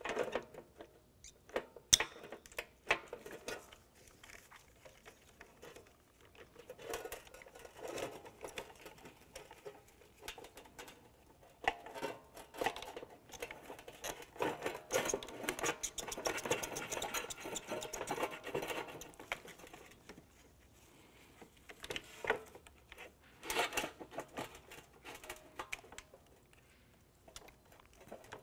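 Gloved hands working a wiring connector off a plastic fuel pump assembly: irregular small plastic clicks and scratching, with one sharp click about two seconds in and a busier stretch of rubbing and rattling in the middle.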